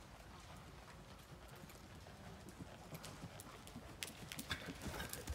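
A horse's hoofbeats on soft dirt arena footing, muffled and irregular, growing louder as the horse comes closer, with a few sharp clicks about four seconds in.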